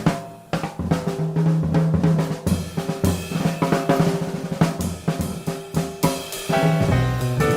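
Jazz drum kit playing busily with snare, bass drum, hi-hat and cymbals, over low bass notes.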